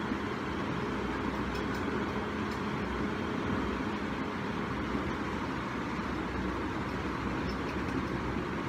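Steady rushing background noise with a faint low hum, unchanging throughout.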